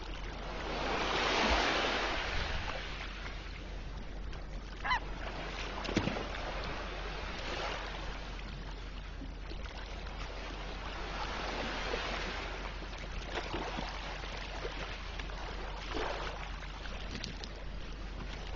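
Sea surf surging and washing against an ice floe in three swells, with a few short honking penguin calls in between.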